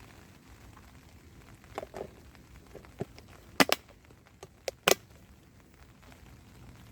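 A handful of sharp knocks and cracks, the loudest a quick double crack about halfway through, with a few lighter taps around it, over faint steady rain.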